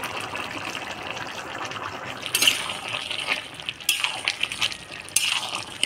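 A watery curry bubbling in an iron kadai with a steady hiss. In the second half come three short wet splashes, about a second and a half apart, as fried prawns are dropped in and stirred through the liquid.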